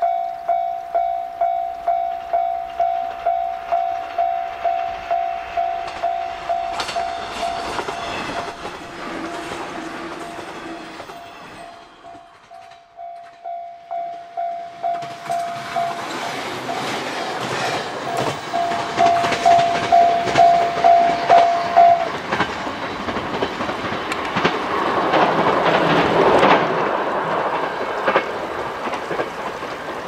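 Japanese level-crossing warning bell ringing in an even ding-ding, about two strikes a second. A brief train horn sounds a little before the middle. After a short dip the bell rings on while a passing train's wheels clatter over the rail joints, louder through the second half; the bell stops about three-quarters of the way through.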